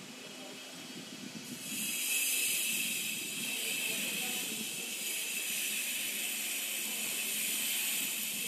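A steady high-pitched hiss sets in sharply about one and a half seconds in and holds, over faint low background noise.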